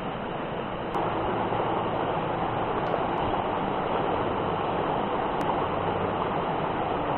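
Rushing water of a mountain stream: a steady noise that grows louder about a second in.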